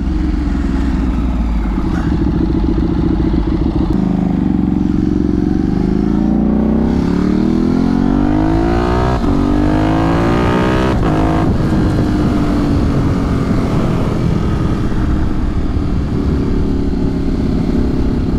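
Ducati 848 Streetfighter's L-twin engine under way. The note climbs for several seconds as the bike accelerates, breaks briefly twice past the middle, then settles to a steady cruise.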